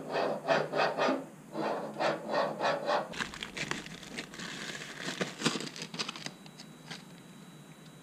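A quick run of light knocks for the first few seconds, then a clear plastic parts bag crinkling as a throttle cable is handled in it.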